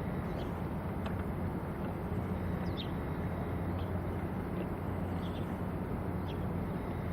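Steady low drone of a large ship's engine under a broad hiss of harbour background, with short high bird chirps scattered through, roughly one a second.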